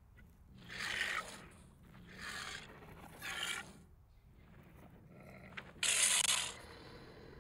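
Triceratops sound effect from an augmented-reality model: four short, raspy growls, the last and loudest about six seconds in.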